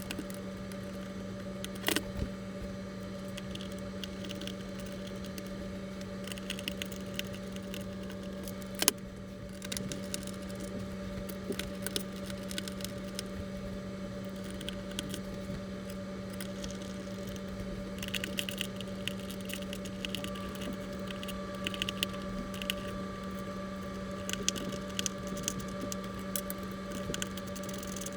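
A steady low hum runs throughout, with a couple of sharp clicks and scattered light tapping and rattling, and a faint higher steady tone joining about two-thirds of the way through.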